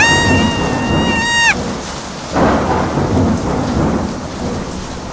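Thunderstorm sound effect: rain hissing steadily while thunder rumbles at the start and cracks again about two and a half seconds in. A steady high-pitched tone is held over the first clap for about a second and a half and bends down as it cuts off.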